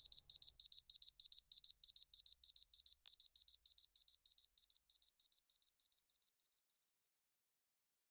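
Electronic alarm beeping fast on one high note, about six beeps a second, fading away and stopping about seven seconds in. A single sharp click about three seconds in.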